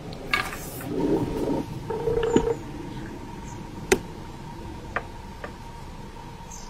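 Close handling noise: soft rustling and scraping in the first couple of seconds, then a few sharp separate clicks, over a faint steady high tone.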